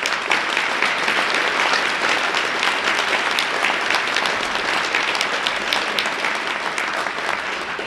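Audience applauding, a dense steady patter of many hands clapping that tapers off near the end.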